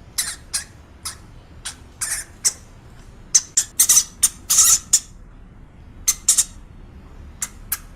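A small animal's short, high-pitched squeaks in irregular runs, busiest around the middle.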